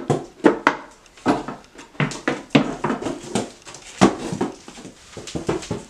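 A goat's hooves knocking and clattering on a wooden milk stand and the floor as she climbs up and comes down: irregular sharp knocks, about two a second.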